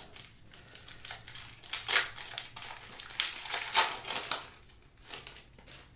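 Foil wrapper of a 2021 Luminance football card pack crinkling as it is torn open by hand, in irregular bursts of rustling that are loudest about two and four seconds in and thin out near the end.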